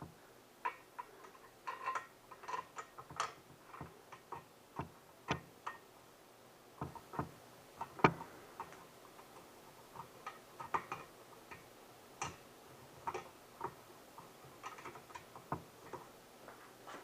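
Scattered, irregular light clicks and taps of metal chair parts and hardware being handled as a long screw is fitted through the front support into the chair's front leg.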